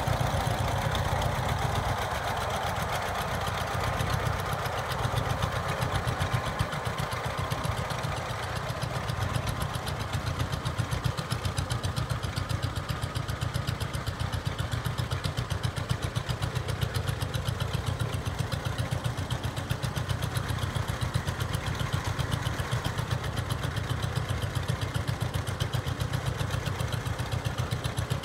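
1939 John Deere H tractor's two-cylinder engine running under way, with an even, rapid popping exhaust beat that stays steady throughout.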